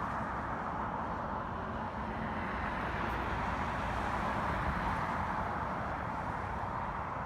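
Street traffic: a steady wash of road noise from passing vehicles, with no siren or horn sounding.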